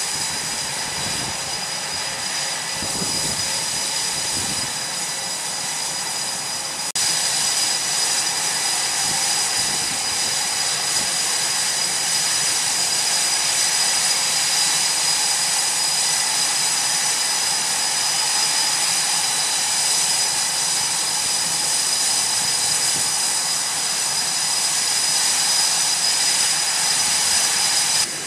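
Jet engines running steadily: a dense rush with a high, unchanging turbine whine. It jumps louder about seven seconds in and stays even after that.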